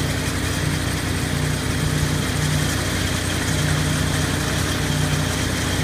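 Wolverine hop harvester running, a steady machine hum with a low tone that comes and goes every second or so.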